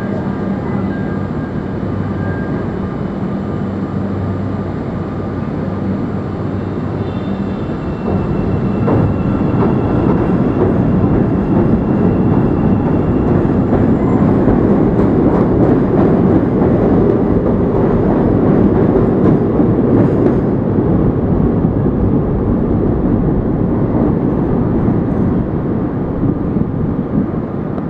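CTA 5000-series rapid transit train at an elevated station: a steady electric hum at first, then the train pulls out and gets louder about eight seconds in, with wheel and rail clatter and clicks. It eases off near the end as it leaves.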